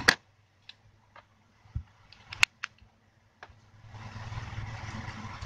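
Plastic clicks and snaps from handling a Samsung GT-E1195 flip phone: a sharp snap at the start as the flip is folded shut, then a few scattered small clicks and a light knock, the loudest about two and a half seconds in. A steady background noise comes back near the end.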